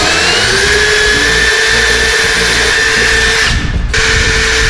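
Worx WU369 electric drill running at a steady whine as it bores holes through wooden board. It cuts out briefly about three and a half seconds in and then starts again.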